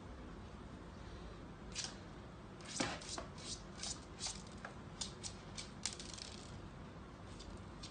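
A string of faint, irregular light clicks and taps, about a dozen between two and six seconds in; the loudest, near three seconds in, is a duller knock.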